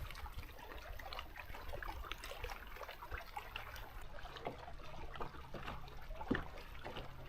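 Small water sounds lapping and trickling against a boat hull, with scattered little splashes and drips over a faint steady low hum.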